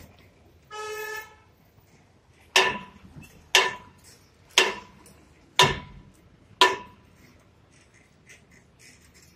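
A vehicle horn gives one short toot, then five sharp, ringing metal strikes fall about a second apart.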